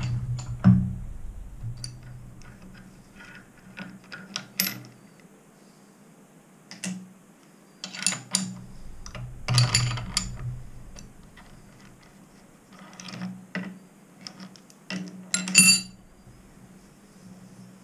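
Steel tools and clamp parts clinking and knocking on a milling machine's rotary table as a clamp is worked with a spanner: scattered short metallic clicks and clanks, loudest about a second in, around ten seconds and late on. At the start the machine's motor hum dies away.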